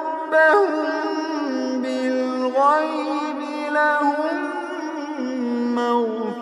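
A man chanting Quran recitation in the melodic tajweed style, unaccompanied. He draws out long held notes with ornamental turns in pitch, in one continuous phrase.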